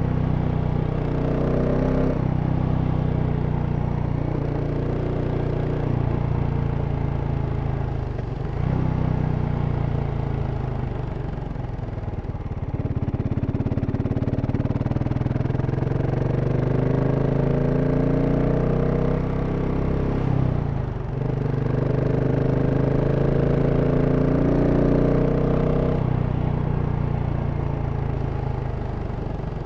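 2023 GasGas SM 700 supermoto's single-cylinder engine running through its stock exhaust, its pitch climbing for several seconds at a time as the bike accelerates. The pitch drops sharply twice, about a third and two thirds of the way through, then eases off near the end.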